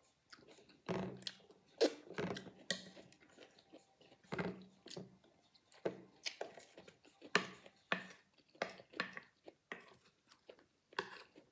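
Close-up chewing of crisp peppers: irregular wet crunches and crackles as each bite is broken down.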